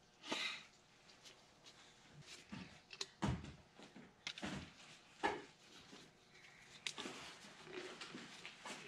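Quiet handling noise of seals being worked into a hydraulic cylinder end cap by gloved hands: a brief rustle at the start, then scattered sharp clicks and light knocks, a few near the middle.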